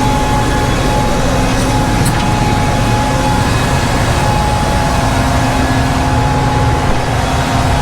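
Combine harvester running steadily: a constant low engine and machinery drone with a thin, steady high whine over it.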